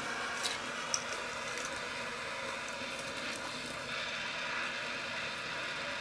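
Butane micro torch flame hissing steadily as it heats a PL259 coax connector to melt solder into it, with a couple of small ticks about half a second and a second in.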